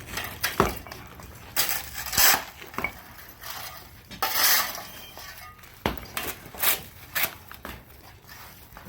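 Metal shovel scraping and clanking through broken furnace brick, clay and hot charcoal debris in a series of separate strokes, with a few heavier knocks.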